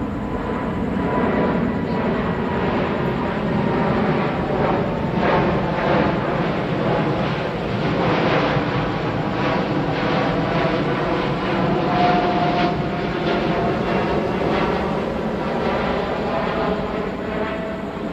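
Steady rushing noise of an aircraft flying over, with a slowly wavering tone, easing slightly near the end.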